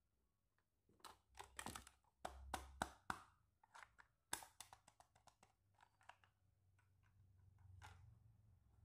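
Hard plastic toy pieces clicking and knocking together as they are handled: a quick, irregular run of sharp clicks that thins out after about six seconds.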